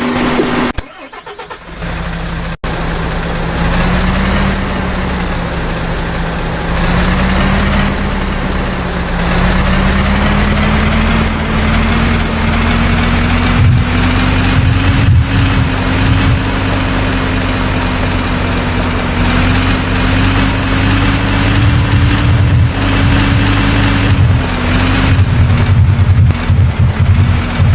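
Heavy diesel engine of construction machinery running steadily, its pitch creeping slowly upward. The sound dips briefly about a second in.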